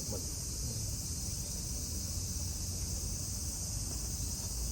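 A steady, high-pitched drone of summer cicadas, continuing unbroken.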